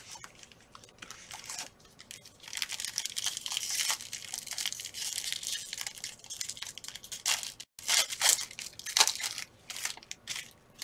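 A Panini Prizm football card pack's wrapper being torn open and crinkled by hand: a run of dense ripping and rustling from about two seconds in, then a few short crinkles after a brief break near the end.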